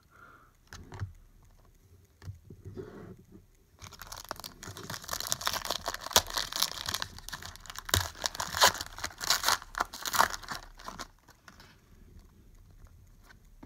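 Foil trading-card pack being torn open and its wrapper crinkled, a dense crackling with sharp clicks that lasts several seconds, starting about four seconds in. Lighter handling clicks come before and after it.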